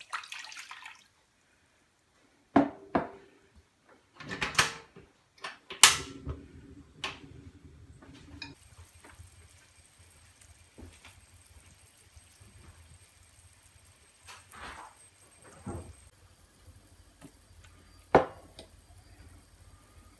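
Water poured from a glass measuring cup onto sugar in a nonstick pan, followed by several sharp knocks and clatters against the pan. Later, a faint steady hiss of the sugar syrup bubbling, broken by a few more knocks.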